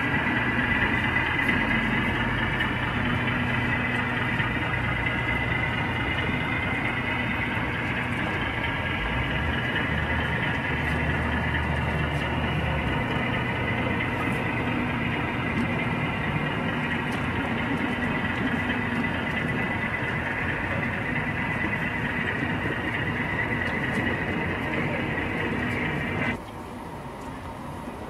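O scale model freight train rolling past on the layout: a steady rumble and whirr of wheels on the rails over a low engine-like hum. The sound drops away abruptly near the end.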